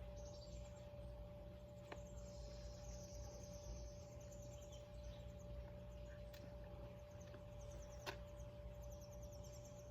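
Faint outdoor background: birds chirping in short, rapid trills over a steady low hum, with a few sharp clicks, the loudest about eight seconds in.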